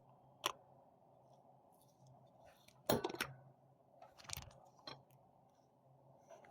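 Faint, scattered clicks and short scrapes of small hand tools against a MoonSwatch case as its movement is pushed out, the loudest about three seconds in.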